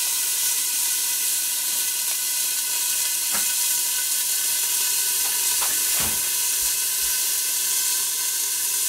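Beef steaks frying in rendered lamb-tail fat in a hot Etalon roaster under a stainless steel lid, with the stove switched off. It is a steady sizzling hiss with a few faint pops.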